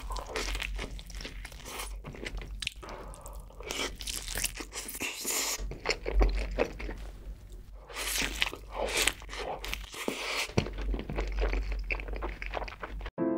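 Close-miked eating sounds: bites and chewing of a cheeseburger and glazed grilled chicken, with irregular crunchy, crackling bites. They stop abruptly near the end.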